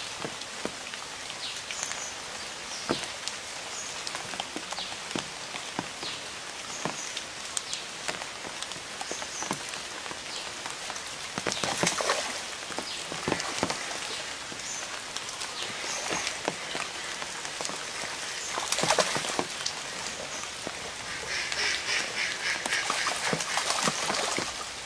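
Water splashing and slapping as fish thrash at a pond's surface. Heavier splashing comes about 12 and 19 seconds in as a hooked fish fights on the line, and a quick run of slaps follows near the end.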